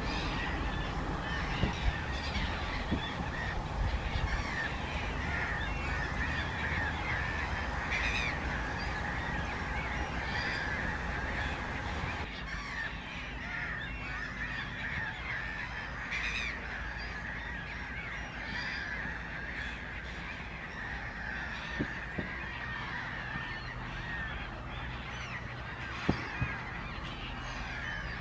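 A dense chorus of many overlapping animal calls, unbroken throughout, with a few sharp clicks in the second half.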